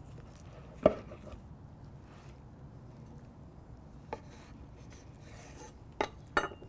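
A knife cutting a tomahawk ribeye away from its bone on a cutting board: quiet scraping and slicing, with one sharp knock about a second in and a few lighter knocks near the end.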